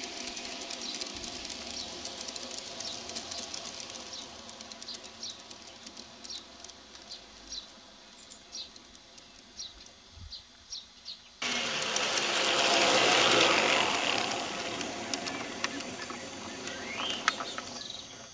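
Aristocraft large-scale model passenger train rolling over garden track, a steady rumble of wheels with birds chirping over it. About two-thirds of the way through, the sound jumps to a louder close-up rush of the coaches passing right by, which swells and then fades.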